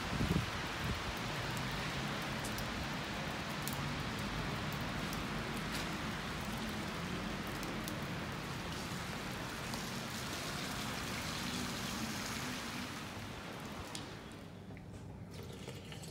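Steady hiss of heavy wet snow mixed with rain falling on wet pavement. About fourteen seconds in it grows quieter and duller.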